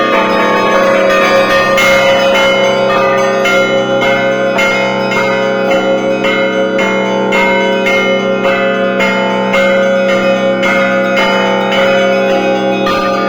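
Russian Orthodox church bells in a festive peal (zvon). Higher bells are struck in a quick, dense rhythm over the steady ringing hum of the larger, lower bells.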